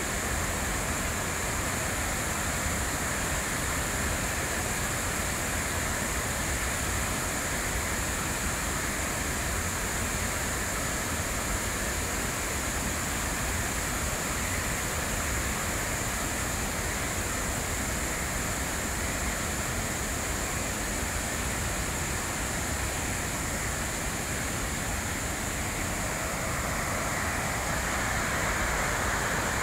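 Steady, even rush of water pouring down the walls of the 9/11 Memorial's reflecting-pool waterfalls.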